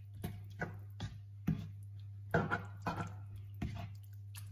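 Plastic spoon stirring minced beef and chopped-tomato sauce in a nonstick frying pan: irregular soft knocks and scrapes of the spoon against the pan, about two a second, over a steady low hum.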